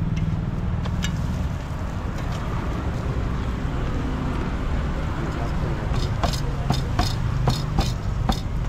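Steady low street-traffic rumble. From about six seconds in, a quick run of sharp metal clicks, roughly three a second, as a metal blade cuts a roti into pieces against a plate.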